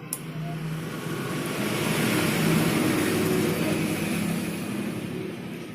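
A motor vehicle going past, its engine and road noise swelling to a peak and fading again, with a short click just at the start.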